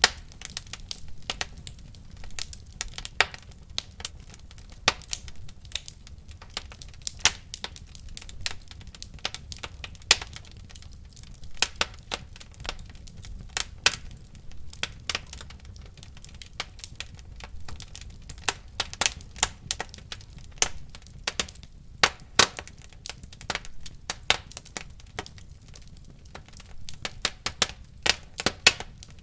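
Wood fire crackling in a fireplace: frequent irregular sharp pops and snaps over a low steady rumble of flame.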